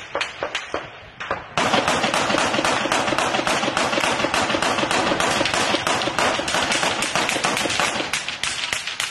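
Small-arms gunfire as covering fire: separate sharp shots a few a second, then from about one and a half seconds in a much louder, dense run of rapid automatic fire, easing a little near the end.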